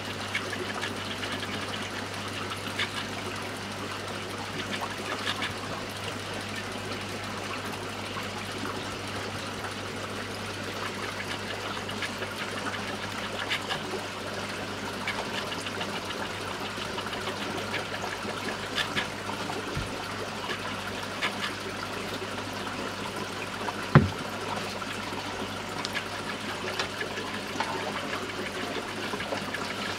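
Aquarium filter running: a steady trickle of water over a low, constant hum, with small scattered ticks and one sharp click about 24 seconds in.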